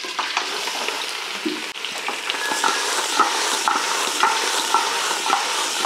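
Raw country-chicken pieces dropped into hot oil and frying onions in an aluminium pressure cooker, sizzling steadily. Short metallic scrapes of the pot and bowl repeat from about two seconds in.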